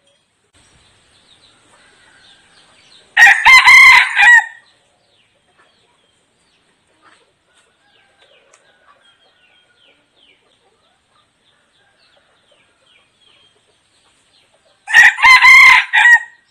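A red junglefowl decoy rooster crows twice, about twelve seconds apart. Each crow is short and clipped, just over a second long, and broken into a few parts.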